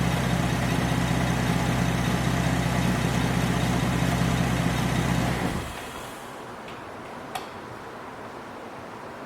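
Chevrolet Traverse 3.6L V6 idling, an engine with a random misfire on cylinders 1, 3 and 5, then switched off about five and a half seconds in, leaving only a faint hiss. A single sharp click follows about two seconds later.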